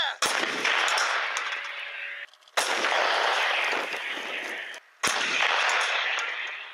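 Three shots from 2A65 Msta-B 152 mm towed howitzers about two and a half seconds apart. Each is a sharp blast followed by a long rolling echo that cuts off suddenly.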